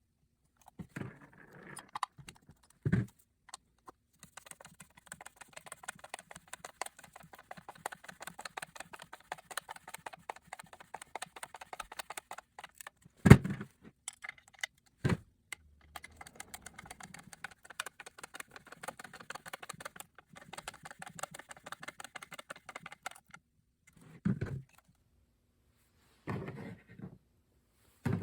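Two screws being driven with a hand screwdriver to fix a porcelain keyless lampholder to its sealing box: long runs of fast small clicks, broken by a few louder knocks.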